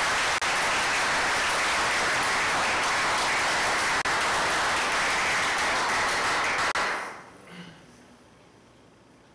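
Audience applauding steadily, then dying away about seven seconds in.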